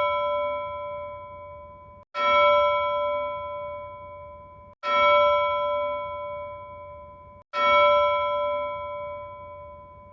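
A bell-like chime rings out four times, about every two and a half seconds. Each strike decays and is cut off abruptly, and the repeats are identical: a repeated, edited-in chime sound effect.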